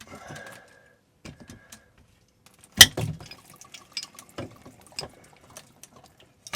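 Water supply lines under an RV kitchen sink being cut, with a sharp snap about three seconds in and another near the end, amid scattered clicks and handling noise; water dribbles and drips from the cut lines.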